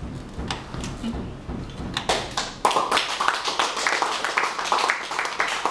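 A small group of people applauding: hand claps start about two seconds in and quickly thicken into steady applause.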